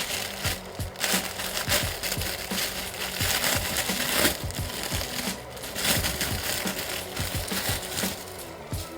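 Plastic toy packaging being handled: a dense crinkling and crackling, with many short sharp crackles, over background music.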